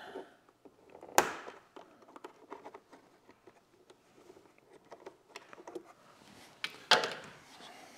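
Plastic push-pin fasteners being popped out of a Honda Gold Wing's plastic body panel. There is a sharp click about a second in and another near the end, with faint small taps and handling noise between.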